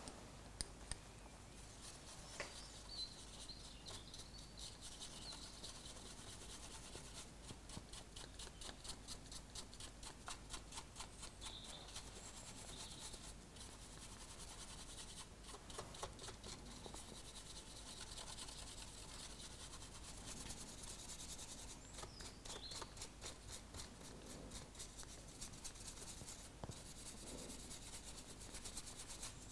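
Faint scratchy rubbing of a wide paintbrush stroked back and forth over a plastic model locomotive's roof, working in oil paint weathering; short scratches come several a second, unevenly.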